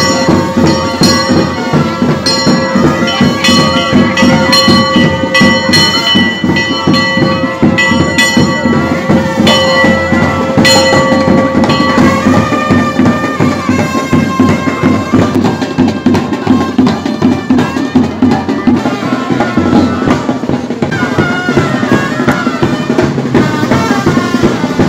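Music with drums and percussion and long held wind-instrument notes.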